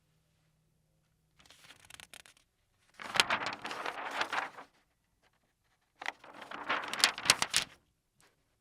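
Paper pages being turned, crisp rustling with sharp crackles. There is a faint turn about a second and a half in, then two louder turns about three and six seconds in, with quiet between them.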